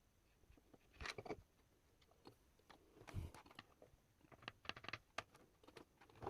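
Faint clicks and rustles of small objects being handled, in three short clusters: about a second in, about three seconds in, and again between four and five seconds in.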